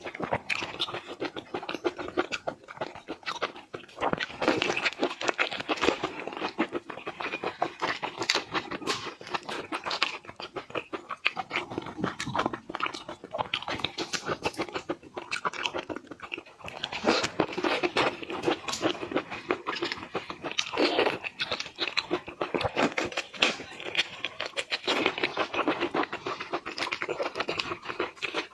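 Close-miked eating of shrimp: continuous crunching and chewing with dense wet crackles and smacks.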